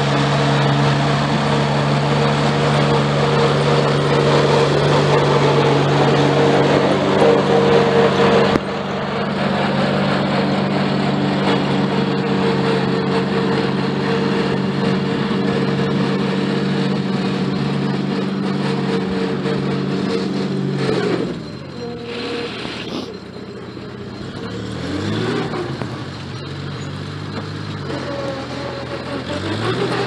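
International Harvester Cub Lo Boy tractor engine running steadily while plowing snow, with an abrupt break about eight seconds in. About two-thirds of the way through, the engine note drops, then rises and falls several times as the engine speed changes, and settles again near the end.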